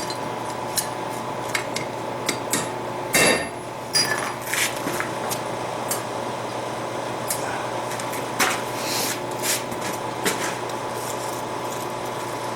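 Irregular light taps and clinks of steel on steel while blacksmith tooling is worked and fitted, with two harder ringing strikes about three and four seconds in. A steady hum runs underneath.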